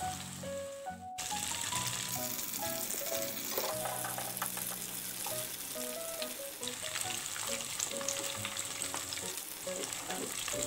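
Batter-coated tofu cubes sizzling in a pot of hot deep-frying oil while being stirred in the pot; the sizzle comes up fully about a second in and then holds steady.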